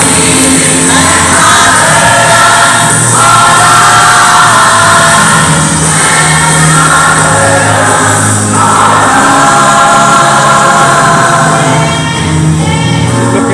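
Loud recorded gospel song with a choir singing long held notes in phrases of a few seconds.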